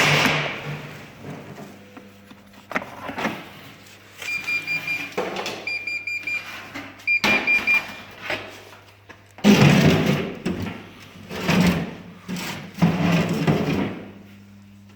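Bosch Avantixx 7 washing machine's control panel beeping: three short runs of rapid high beeps a few seconds in. A knock opens the stretch, a low hum runs underneath, and louder bursts of noise come near the end.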